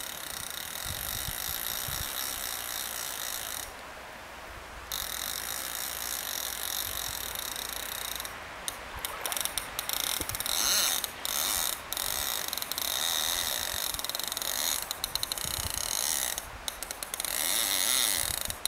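Fly reel's click-and-pawl ratchet buzzing while a hooked salmon is played on a two-handed rod. It stops for about a second around four seconds in, then stutters on and off through the second half.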